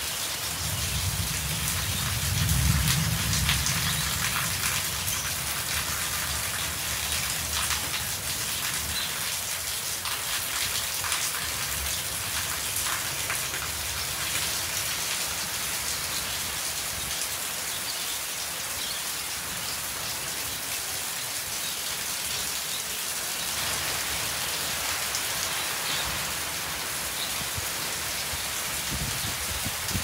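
Steady rain falling on corrugated metal roofing and wet concrete, with many separate drop hits. A low rumble swells about two to three seconds in and returns faintly near the end.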